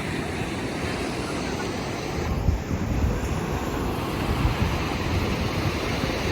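Wind buffeting the microphone in irregular gusts, over the steady wash of ocean surf.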